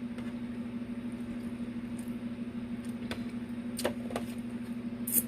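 A steady low hum, with a few short clicks and smacks of someone eating, spaced out over the second half.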